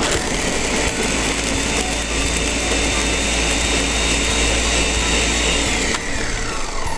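Countertop blender running at full speed, churning a thick mix of candy canes, gingerbread, fruitcake, turkey, cider and eggnog. Its motor whine falls away as it is switched off and spins down about six seconds in.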